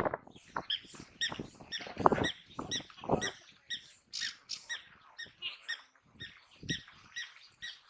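African wild dogs giving their high-pitched twittering squeaks, short chirps repeated about three a second. Some low rustling knocks run under them in the first few seconds.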